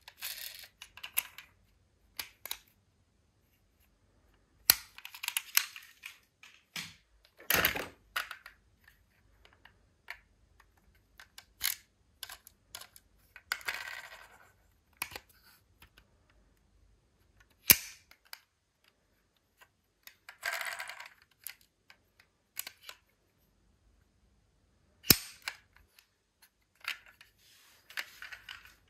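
Die-cast toy cars being handled, with scattered sharp clicks of metal and plastic knocking together and short stretches of scraping and rustling between quiet gaps.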